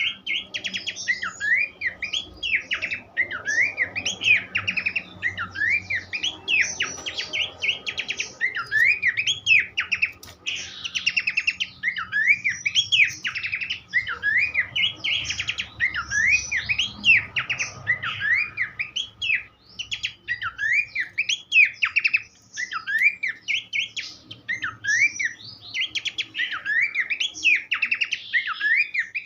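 Pelanduk semak (Horsfield's babbler) singing without pause: quick whistled notes sweeping up and down, several a second, broken by bursts of fast chattering notes.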